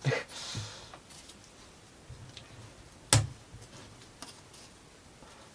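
Laser-cut plywood model parts being pushed out of their sheet: a few faint clicks and light rustling, with one sharp snap about three seconds in.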